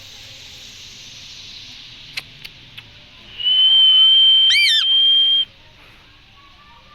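Indian green parrot whistling: one long, steady, high whistle of about two seconds, with a short rising-and-falling note over it partway through, ending abruptly. A few faint clicks come just before it.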